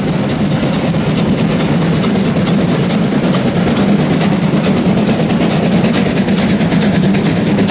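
Steam locomotive 52 7596, a German class 52 engine, running at speed close alongside, its rapid exhaust beats in an even rhythm over the steady rumble of wheels and rods on the rails.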